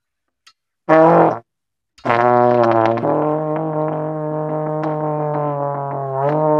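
Trombone played to imitate a race car: a short loud blast about a second in, then a long held low note from about two seconds in that bends slightly up near the end.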